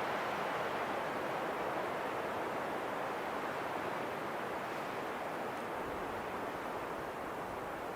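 Steady wind blowing, an even rushing noise that eases very slightly over the seconds.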